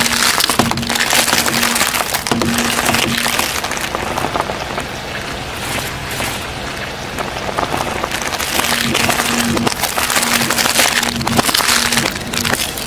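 Dense crackling and crunching as a car tyre rolls over a cardboard tray of eggs, breaking the shells and flattening the carton.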